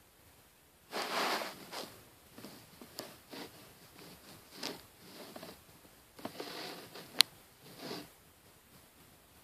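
A woman snoring in her sleep: rough, raspy breaths at uneven intervals, the strongest about a second in and again around six to seven seconds in. One sharp click just after the seven-second mark.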